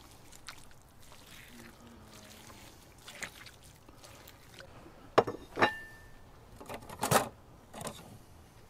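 Utensils clinking against a dish: a few sharp strikes in the second half, one of them ringing briefly.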